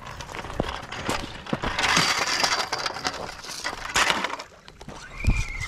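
Footsteps crunching on loose rocks and gravel, with stones clinking and knocking together and a heavier thump near the end.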